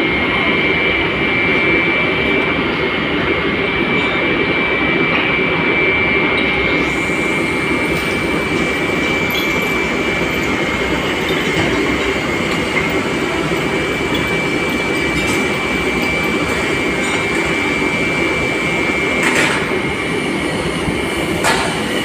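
Steady industrial machinery noise on a foundry floor: a loud constant rush with a steady high whine running through it, and a couple of short sharp knocks near the end.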